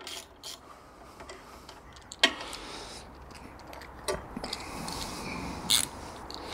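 Spanner working on the trolley's nuts and bolts: scattered light metallic clicks and ticks, with a sharper knock about two seconds in and another near the end, as the bolts are held and tightened.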